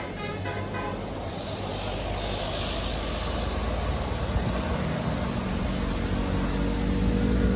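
A multi-note telolet Basuri bus horn melody cutting off about a second in, followed by the engine and tyre noise of a large bus going by, getting louder toward the end.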